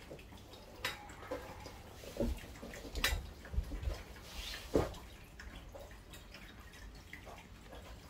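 Scattered light clicks and knocks of cat water fountain parts being handled and fitted together, a few taps a second apart at irregular intervals.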